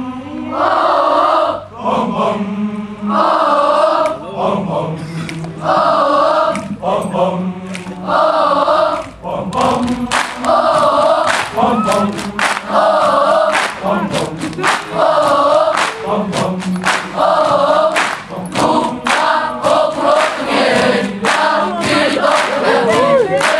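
Large group of schoolboys chanting and singing a school cheer in unison, in loud repeated phrases. Sharp rhythmic strikes join in about ten seconds in.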